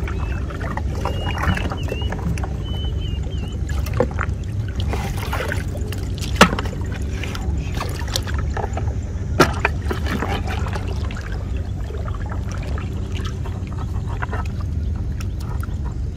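Water splashing and dripping as a fish trap net is lifted and worked over a bucket in shallow floodwater, with a few sharp splashes or knocks, the loudest about six seconds in. A steady low rumble runs underneath, and a few short high chirps come about two seconds in.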